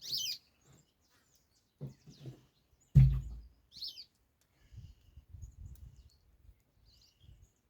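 A bird chirps twice, short falling calls at the start and about four seconds in. A sharp knock about three seconds in is the loudest sound, followed by soft low handling noise.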